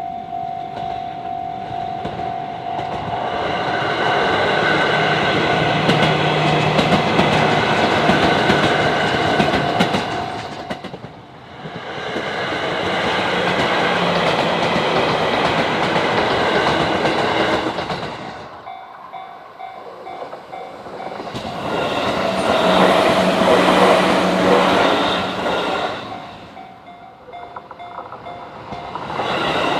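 JR Sagami Line electric trains passing over a level crossing, with wheels clattering on the rails. The train noise falls away and comes back several times. In the quieter gaps, the crossing's warning bell can be heard ringing in a quick, even repeat.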